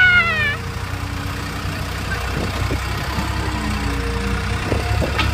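Bobcat skid-steer loader's engine running steadily with a low rumble. A woman's high-pitched scream sounds briefly right at the start.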